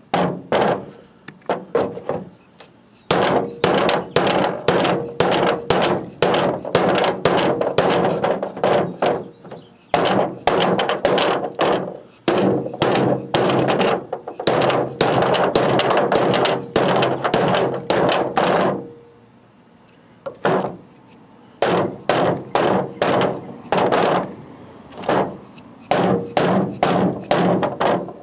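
Dead blow hammer tapping a bushing into a sway bar end link resting on a ribbed bed liner: quick repeated blows, several a second, in two long runs with a short pause about two-thirds of the way through.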